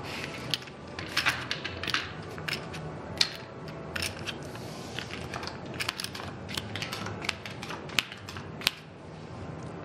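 Casino chips and playing cards handled on a felt blackjack table: a string of sharp, irregular clicks and clacks as the dealer clears one hand and deals the next. Two clicks near the end are the loudest.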